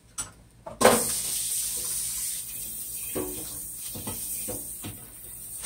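Oil sizzling under a Spanish tortilla frying in a skillet on its second side: a hiss that starts suddenly about a second in and slowly fades.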